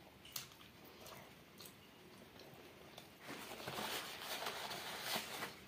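Faint mouth sounds of chewing fried fish with a few small clicks, then from about three seconds in a paper napkin rustling and crumpling as greasy fingers are wiped.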